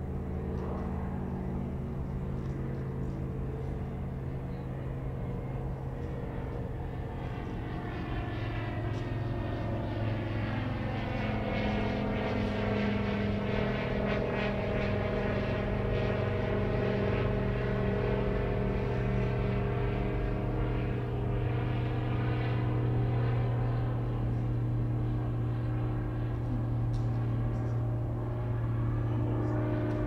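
Newly rebuilt Pratt & Whitney R-985 nine-cylinder radial engine of a Beech D17S Staggerwing running at idle on the ground, a steady low drone that grows a little louder from about ten seconds in.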